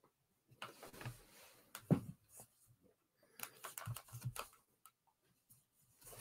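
Faint handling noise of comic books being picked up and moved: scattered soft rustles and taps in two short flurries, the loudest a light knock about two seconds in.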